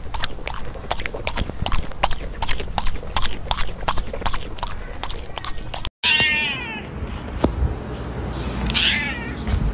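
A koala chewing eucalyptus leaves right into a microphone: a fast run of crisp, crunchy clicks. About six seconds in this cuts off, and a high, wavering, falling call is heard twice.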